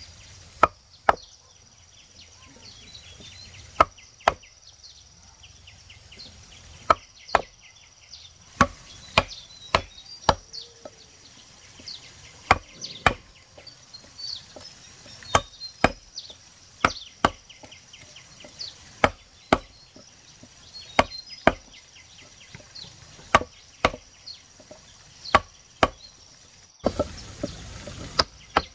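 Irregular chopping strikes, a blade hitting wood, about one to two a second with short pauses. A steady high insect drone runs behind them.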